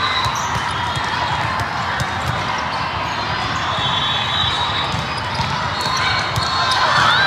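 Busy volleyball tournament hall ambience: a steady din of many voices, with frequent sharp knocks of volleyballs being hit and bouncing on the surrounding courts, echoing in the big hall.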